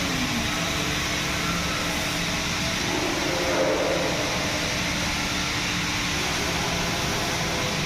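MIG welding arc running with a steady, even hiss.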